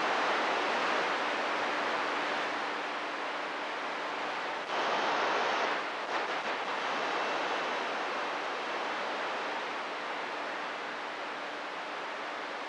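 CB radio receiver hiss with the squelch open between transmissions: steady static with a faint hum. About five seconds in, a louder burst of static lasts about a second.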